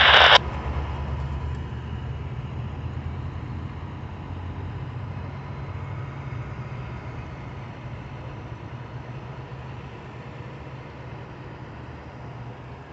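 Metra bilevel commuter train cars rolling past and pulling away: a steady low rumble that slowly fades as the train recedes, with a faint steady high tone over it. A loud noisy sound cuts off about half a second in.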